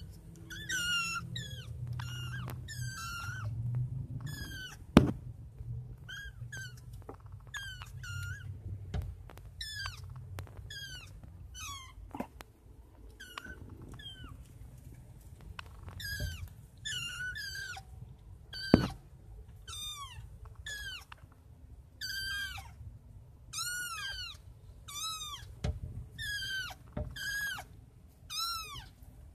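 Young kittens meowing over and over, short high-pitched calls about one a second. Two sharp knocks, the loudest sounds, come about five seconds in and again past halfway.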